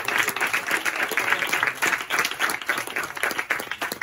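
Audience applauding, many hands clapping densely, beginning to thin out near the end.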